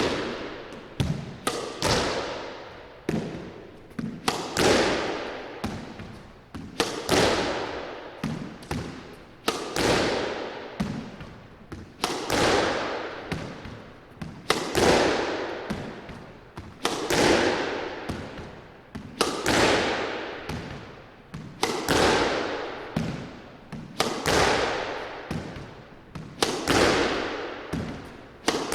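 A squash ball being driven repeatedly with a racket in a solo practice rally, the ball cracking off the racket and the court walls. The hits come in a steady rhythm, with a loud strike about every two and a half seconds and lighter taps between, each echoing around the enclosed court.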